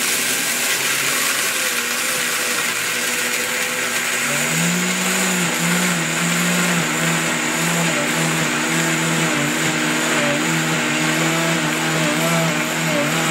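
Oster Versa high-performance blender running steadily, grinding raw hulled sunflower seeds toward a seed butter. From about four seconds in, its motor tone wavers up and down as the load of seeds shifts.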